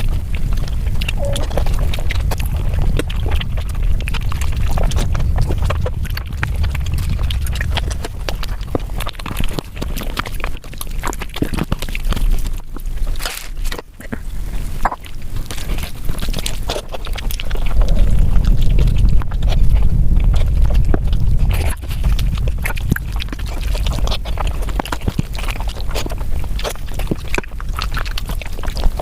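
Close-miked eating sounds: chewing, smacking and biting into food, with many short sharp clicks.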